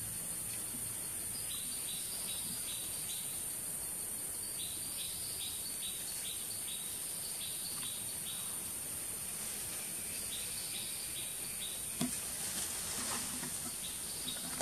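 Tropical forest ambience: a steady high-pitched insect drone, with a bird calling runs of short, evenly spaced notes, about three a second, several times over. A single soft knock near the end.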